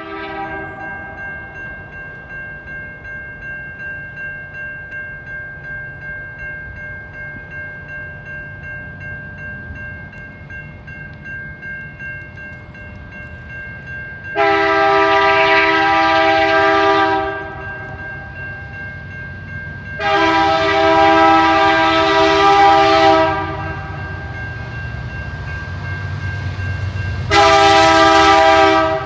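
Freight diesel locomotive's air horn blowing three blasts: long, long, then short, the opening of the standard warning for a grade crossing. Under it a bell rings steadily, and the low rumble of the approaching train grows near the end.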